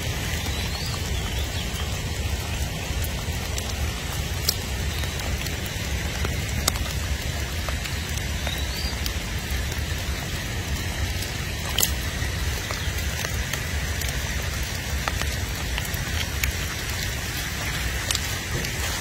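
Steady outdoor noise: an even hiss with a low rumble underneath and a few faint ticks scattered through it.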